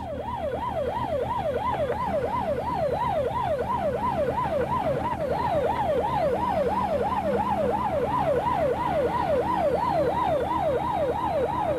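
Police car electronic siren in fast yelp mode, sweeping up and down about three times a second, over steady engine and road noise.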